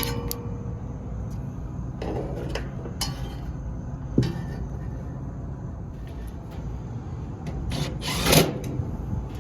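Rubbing and scraping handling sounds, as of tools or metal parts being moved, with a few short scrapes and a louder, longer one near the end, over a steady low rumble.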